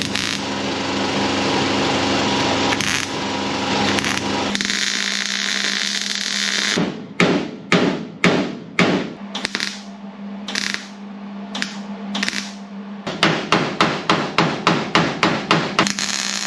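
A steady hiss for the first several seconds, then hammer blows on 18-gauge sheet steel: a handful of spaced strikes, then a quicker run of about three a second near the end.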